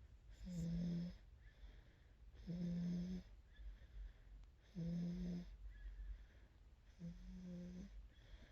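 Snoring: a short, steady-pitched snore about every two seconds, four in all, with softer breathing between them.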